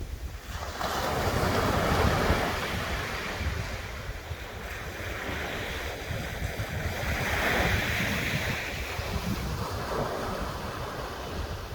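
Sea waves breaking and washing ashore, swelling loudest twice, with wind rumbling on the microphone.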